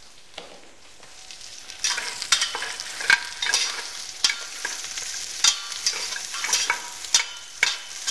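Sliced onions sizzling in oil in a stainless steel pot over low heat. From about two seconds in, a spoon stirs them, scraping and clinking irregularly against the pot.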